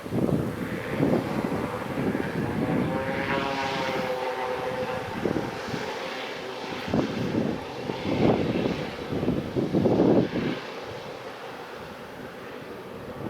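Fixed-wing aircraft engines, with the noise of a passing aircraft. A set of engine tones sinks slightly in pitch about three to five seconds in as the aircraft goes by.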